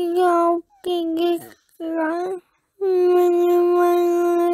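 A high, clear voice singing alone: three short phrases on much the same note, then a long held note near the end, with dead silence between phrases.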